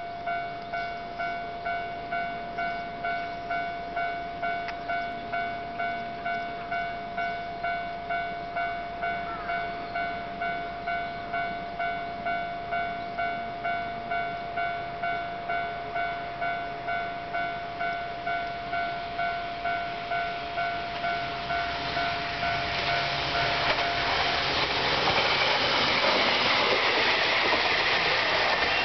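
Level-crossing warning bell ringing in an even, rapid repeating ding, then a JR Kyushu 815 series two-car electric train approaching and passing, its running noise swelling from about three-quarters of the way through until it drowns the bell.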